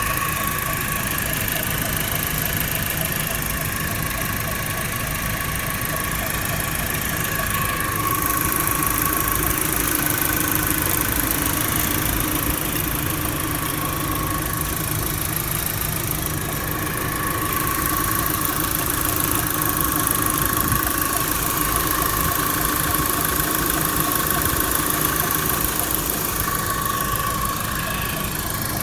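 Opel Insignia 2.0 turbo petrol four-cylinder (A20NFT) running steadily at idle, with a thin high whistle that swells and fades every few seconds. The whistle and a scraping noise are what the owner cannot place.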